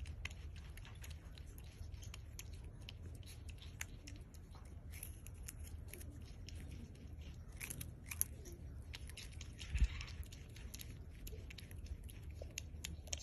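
Prehensile-tailed porcupine gnawing kernels off a corn cob: many quick, small crunching clicks all through, with a dull thump about ten seconds in.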